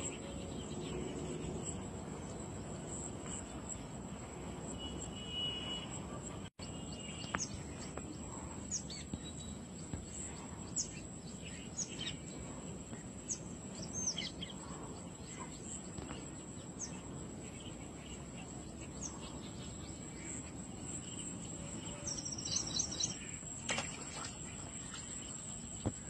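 Outdoor ambience of birds and insects: a steady high insect buzz with short bird chirps scattered through it, and a quick run of repeated chirps about twenty-two seconds in, over a low steady background hum of wind and surroundings. The sound drops out for an instant about six and a half seconds in.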